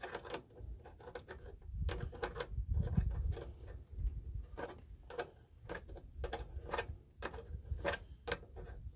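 Hand wrench clicking in short, irregular strokes as the bolt on an engine's throttle-cable clamp is run tight, with a low rumble about two seconds in.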